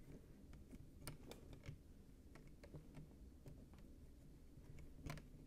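Faint, irregular small clicks and taps of LEGO plastic pieces being handled and pressed together on a battery box, with a few sharper clicks about a second in and near the end.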